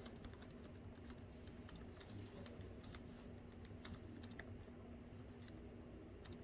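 Faint, irregular clicking of fingers typing on a laptop keyboard, over a steady low hum.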